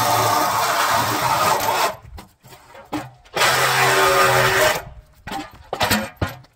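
Flex 24-volt cordless reciprocating saw cutting through a steel trailer frame rail in two runs, the first ending about two seconds in and the second lasting about a second and a half, followed by a few short metal clanks as the cut section is handled.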